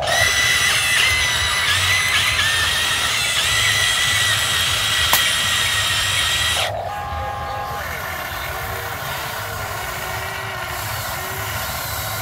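Huina full-metal RC hydraulic excavator's electric hydraulic pump whining steadily as the arm and bucket dig, with one sharp click midway; the loud whine drops off abruptly about two-thirds of the way through, leaving a quieter hum.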